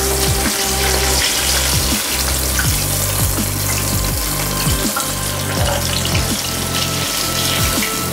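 Hot oil sizzling as breaded potato-cheese balls deep-fry, over background music with a repeating bass line.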